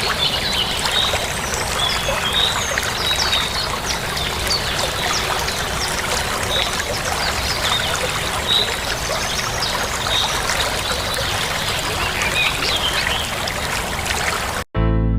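A stream's running water trickling steadily, with small birds chirping now and then. Near the end it cuts off abruptly and a chiming music track begins.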